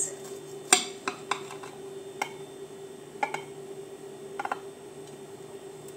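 Scattered light clicks and taps of kitchen utensils against dishware as a freshly baked yogurt cake is handled, the sharpest just under a second in, over a steady hum.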